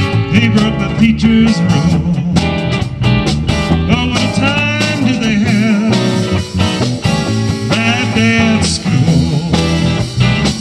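Live rock band playing an instrumental passage: electric guitars and bass over a drum kit, with a lead guitar line wavering and bending in pitch about midway and again near the end.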